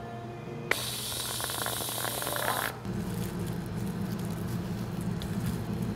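Whipped cream dispenser spraying cream onto a drink: a click, then a hiss for about two seconds that cuts off sharply. A steady low hum follows.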